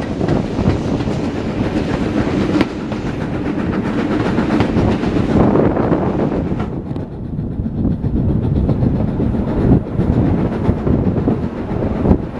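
Steam-hauled train heard from an open carriage window: the LMS Black 5 5428 and LMS 8F 48305 double-header working ahead, with coach wheels clattering over the rail joints and wind rushing past. The high wind hiss eases about halfway through.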